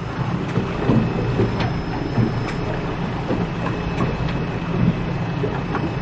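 Small boat under way at low speed: a steady low motor hum under the noise of water and wind.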